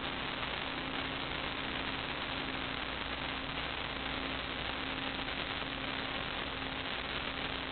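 Steady hiss with a faint constant hum, the background noise of the recording, with no distinct sound event.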